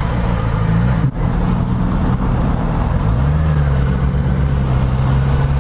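Motorcycle engine running under way, with wind noise over it. The engine note drops briefly about a second in and climbs again about three seconds in as it picks up speed.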